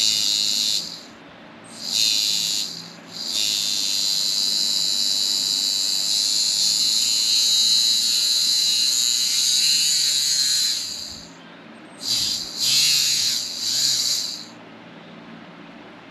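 Homemade 3D-printed inrunner brushless DC motor spun up to high speed in bursts, giving a high, hissing whine. Two short bursts come first, then one run held for about eight seconds, then three quick bursts near the end.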